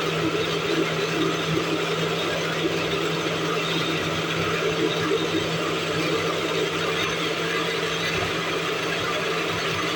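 Electric blender running steadily at one speed, blending fruit, carrot and water into juice, with a constant low motor hum under an even whirring.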